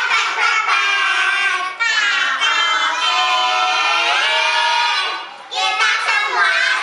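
Children singing a song in high voices, with a long held note in the middle of the phrase and a short break about five and a half seconds in.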